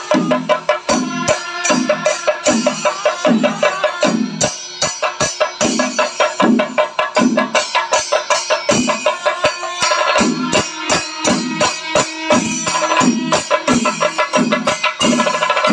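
Kerala temple percussion ensemble playing a steady, driving rhythm: drum beats recur evenly under a dense, constant clatter of small hand cymbals.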